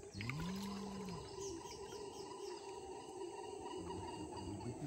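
Rainforest ambience: a steady chorus of insects holding several even tones at once, with a few faint bird chirps. A brief low hum rises and falls near the start.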